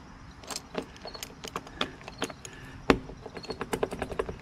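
A bunch of keys on a ring jangling and clicking against a lawn tractor's ignition switch as keys are tried in it: a run of small metallic ticks and taps, with one sharper knock about three seconds in.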